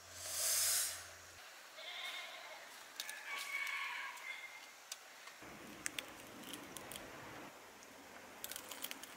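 A fried prawn is pulled apart by hand, with a short, loud crackle of tearing shell. It is followed by a pitched animal call in the background and, later, small clicks of biting and chewing.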